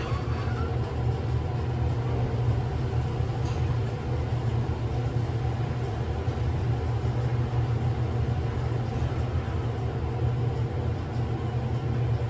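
KONE glass elevator running between floors: a steady low mechanical hum from its drive, with faint steady tones above it.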